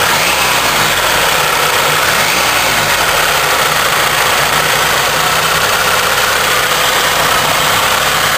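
GM Iron Duke 2.5-litre four-cylinder engine running at idle with a steady knocking from inside the engine, which the owner takes for a spun bearing, maybe a rod knock.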